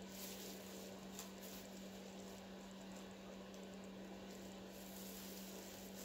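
Quiet room tone: a steady low hum with a faint hiss, and a couple of faint small clicks.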